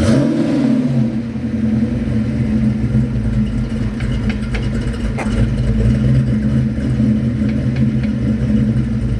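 1989 Ford Mustang engine running just after its first start of the season: a brief rev in the first second, then a steady idle.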